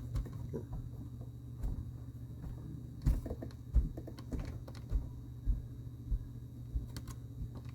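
Scattered light clicks and taps of a plastic LEGO minifigure being handled and turned in the fingers, over a steady low hum.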